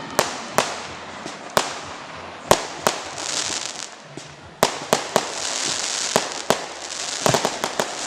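Fireworks and firecrackers going off: sharp bangs at irregular intervals, several in a quick cluster near the end, with hissing crackle between them.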